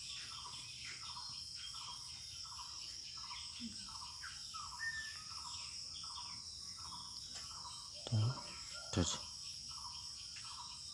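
Crickets and other insects chirping steadily: a high continuous trill with a lower chirp repeating about three times a second. A couple of brief low sounds come about eight and nine seconds in.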